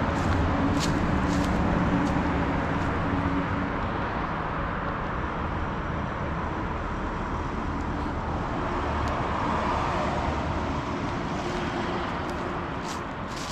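Road traffic: the steady rumble of passing cars, with an engine hum for the first few seconds.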